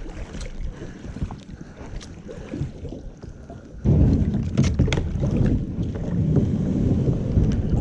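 Kayak being paddled through water, with small clicks and splashes, then wind buffeting the microphone from about four seconds in, making a loud rough rumble.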